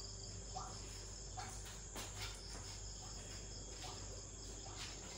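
Faint background with a steady high-pitched whine and a few soft clicks.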